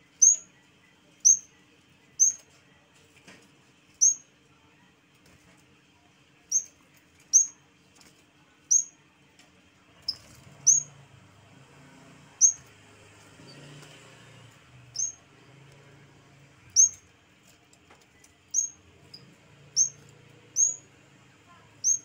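Yellow-bellied warbler (cikrak bambu) calling: short, sharp, high chirps that drop in pitch, one every second or two in an uneven series.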